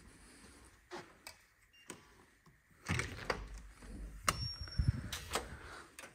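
Electronic keycard door lock releasing, with a short high beep, followed by the clicks and clunks of the door handle turning and the hotel room door being pushed open.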